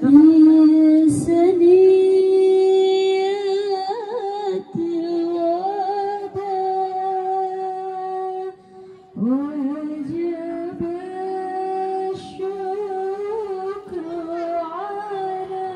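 A woman's voice singing a slow, ornamented melody of long held notes in two phrases, with a short breath pause about eight and a half seconds in.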